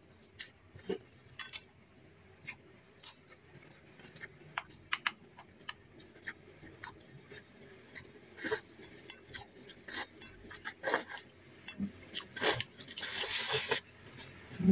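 Close-up eating sounds: noodles slurped and chewed, with scattered light clicks and clinks of wooden chopsticks against a ceramic plate. There is a longer slurp near the end.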